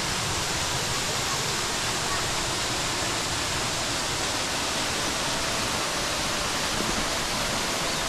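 Steady rush of a waterfall.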